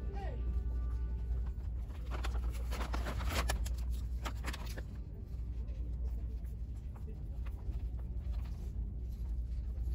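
Steady low rumble of handheld-phone and store background noise, with a stretch of rustling and handling clicks from about two to five seconds in.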